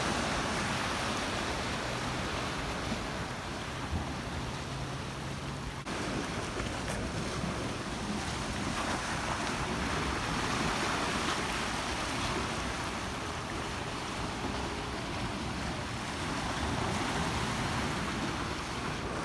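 Ocean surf washing steadily against the jetty, with wind buffeting the microphone.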